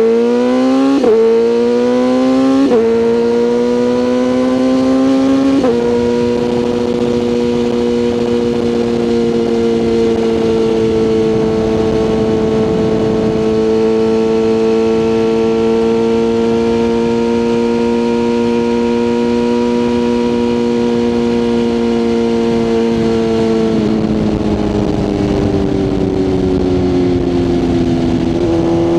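BMW S1000RR inline-four motorcycle engine accelerating hard through three quick upshifts in the first six seconds, each marked by a sudden drop in pitch. It then holds a steady cruise, falls in pitch as the throttle closes, and steps back up near the end.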